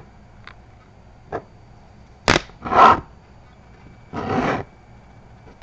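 Trading cards handled by hand: a few light clicks and two short scraping rubs as a card is slid and turned.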